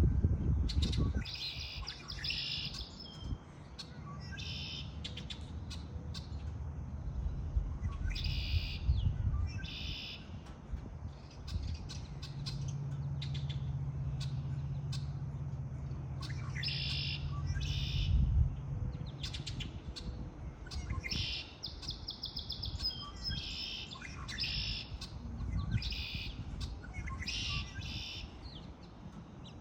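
Songbirds singing, with short bursts of high, rapid twittering repeating every second or two. A low rumble runs beneath, with a steady low hum for several seconds in the middle.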